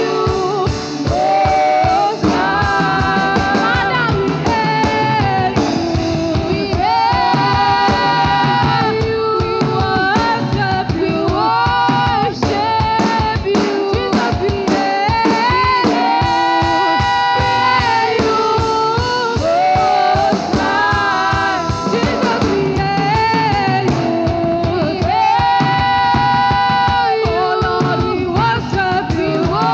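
Live gospel worship music: a sung melody over a band with drum kit and guitar, and a steady drum beat.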